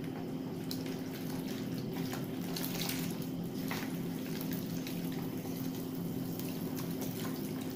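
Whisk stirring flour into a wet batter in a plastic bowl: a continuous swishing and scraping with a few brief sharper strokes, over a steady low hum.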